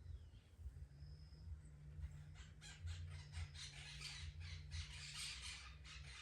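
A cat licking its fur: a quick run of short rasping tongue strokes in the second half, over a low steady hum.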